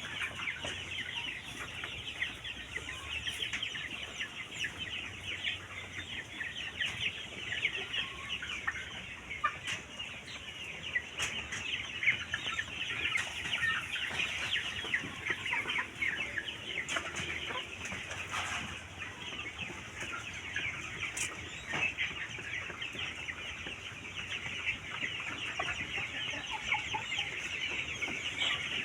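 A flock of chickens in a poultry house calling continuously: a dense chatter of many overlapping clucks and peeps.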